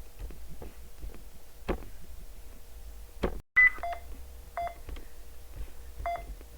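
Ventilator simulator alarm beeping: short two-tone beeps that start about three and a half seconds in and repeat at uneven intervals, after a few soft clicks.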